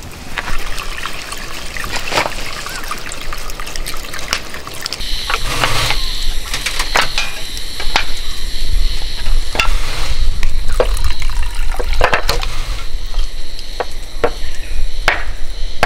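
Water running from a water jug's tap into a mess tin of rice, a steady trickle that sets in about five seconds in and grows stronger, with light knocks of handling throughout.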